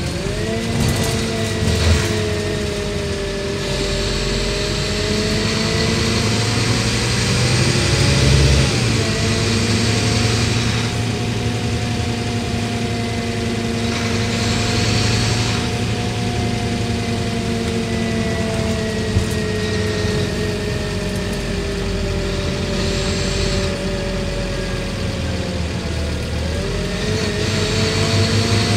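Scania N230UD double-decker bus's five-cylinder diesel engine under way, heard from the upper deck. It climbs in pitch as the bus pulls away, then dips and climbs again about nine seconds in and near the end as the ZF Ecolife automatic gearbox changes gear.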